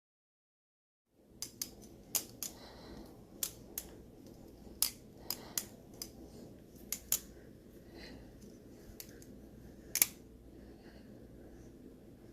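A series of sharp, irregular clicks and clacks from small hard objects being handled, over low room noise; the loudest click comes near the end.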